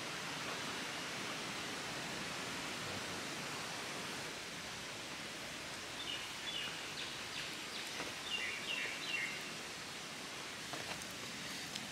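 Steady rural outdoor background noise. About halfway through, a bird gives two short runs of quick, high chirping notes.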